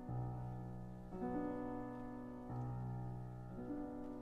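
Slow, gentle piano music: held chords that change about every second and a quarter.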